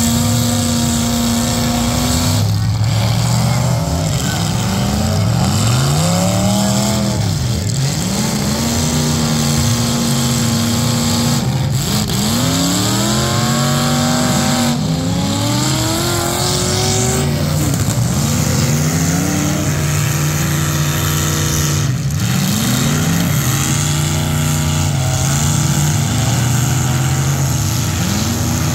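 Several demolition derby cars' engines revving hard again and again, their pitch climbing and falling as they accelerate, with a few sharp bangs scattered through.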